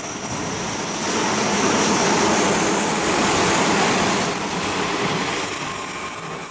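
Hanshin Electric Railway train running through the station at speed without stopping: a rushing of wheels and motors that swells about a second in and fades as the last cars go by.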